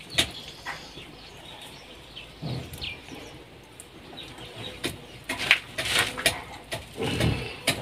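Birds chirping in the background, with scattered sharp knocks and clinks, several coming in quick succession in the second half.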